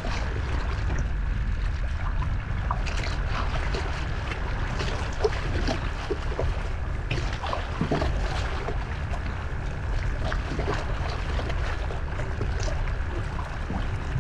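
Strong wind on the microphone as a steady low noise, with choppy waves splashing and slapping irregularly against the kayak's hull.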